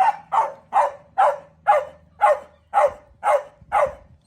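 Small dog barking over and over in a steady rhythm, about two barks a second.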